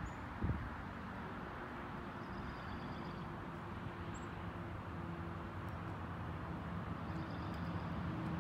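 Steady low engine hum of a motor vehicle over outdoor background noise, growing a little louder toward the end, with a few faint bird chirps.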